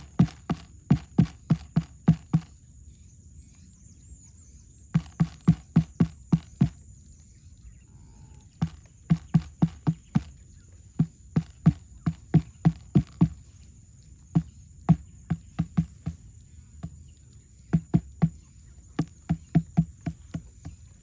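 Runs of quick, even thuds, about three a second, stopping and starting several times, over a faint steady high-pitched whine.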